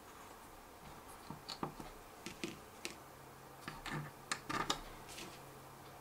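Faint, scattered clicks and taps of a small screwdriver and a plastic prop guard mount being handled while the mount is fitted to a drone's motor arm.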